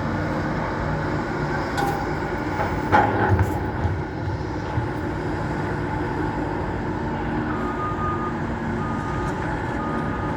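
Diesel excavator engines running steadily, with a few sharp knocks about two to three and a half seconds in. Near the end a reversing alarm starts beeping, about once a second.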